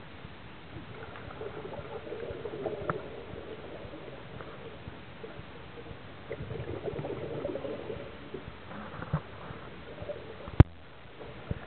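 Scuba diver's exhaled regulator bubbles heard underwater, rumbling and gurgling in bursts a few seconds apart over a steady hiss. A single sharp click about a second before the end.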